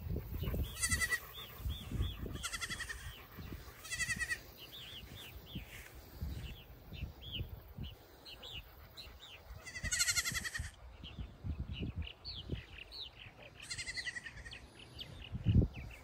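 Baby goats bleating: five high, quavering bleats spread out with long gaps between them. Small birds chirp steadily in the background.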